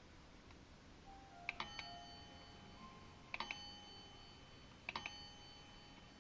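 Imhof brass table clock striking three o'clock: three chimes about a second and a half apart, each a few quick hammer hits that ring on.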